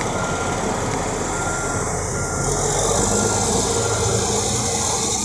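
Heavy truck or construction vehicle engine running steadily, with a faint backup alarm beeping.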